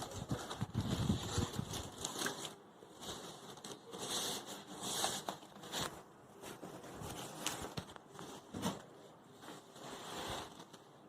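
Plastic packaging rustling and crinkling in uneven bursts as a new electronic keyboard is unwrapped, with a few light clicks and knocks of handling.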